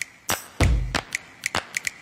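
Intro sound track of sharp clicks and snaps in an irregular quick rhythm, over a deep bass boom that comes in about half a second in.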